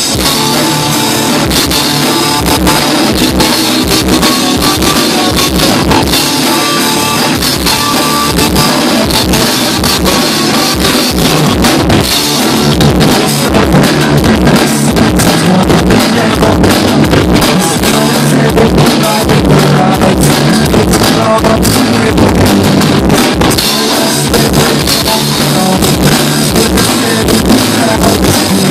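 Rock band playing live and loud, a drum kit keeping a steady beat under guitars.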